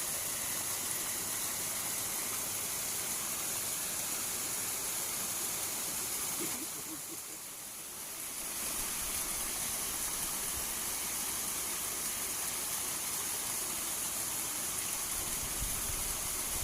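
Steady rushing of water flowing in a small ditch, dropping briefly quieter about halfway through.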